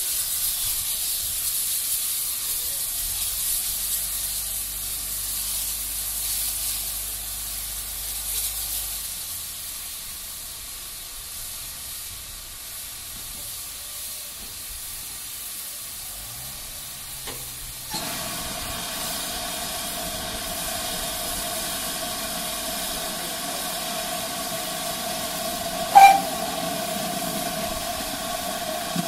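Steam locomotive hissing steam. About two-thirds of the way in the hiss suddenly grows louder, with a steady tone in it. Near the end the GWR 2800 class 2-8-0 2857 gives one short, loud whistle blast before moving into the yard.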